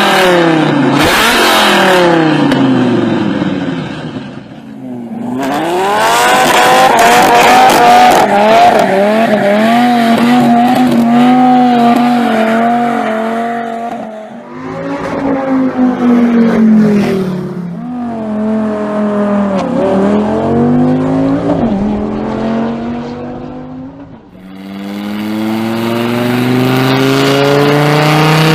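V10 sports car engine at high revs, rising and falling in pitch as the car accelerates and goes past several times. Near the end it pulls hard, its pitch climbing steadily.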